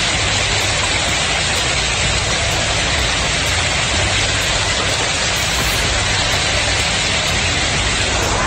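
Torrential, wind-driven rain pouring down in a steady, dense hiss that does not let up.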